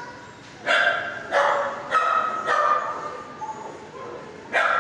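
Dogs barking in a shelter kennel block: a run of sharp barks about half a second apart, then another near the end, each echoing off the hard walls.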